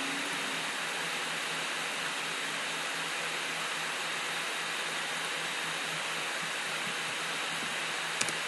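Steady background hiss from the recording's noise floor, with a faint low steady hum under it. A short click comes near the end.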